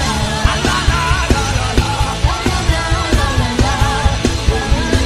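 Loud worship music with a band, heavy bass and drums, and voices singing and crying out over it.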